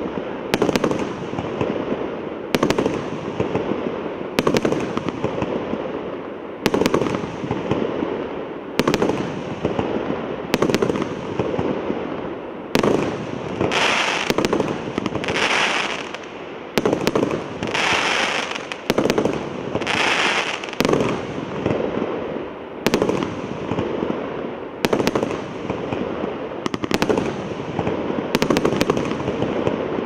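A 96-shot, 1.2-inch fireworks cake firing one shot after another: a sharp bang about every two seconds over a constant crackle. Around the middle come a few louder hissing bursts.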